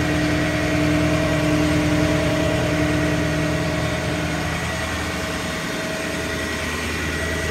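Ford F-550's 6.0-litre Power Stroke V8 diesel idling steadily, a low hum with a steady tone over it that fades a little past halfway.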